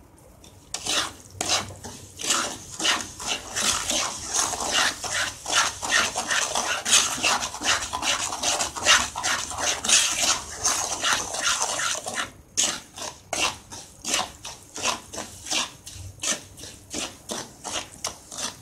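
A wooden spatula stirring and scraping ground moong dal as it roasts in ghee in a nonstick kadhai. The scrapes come quickly, two or three strokes a second, with one short pause about twelve seconds in.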